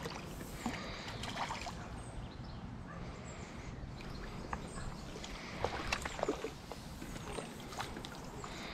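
Pond water splashing and sloshing as a landing net is pushed through it and a hooked fish thrashes at the surface. Scattered small clicks and knocks run through it.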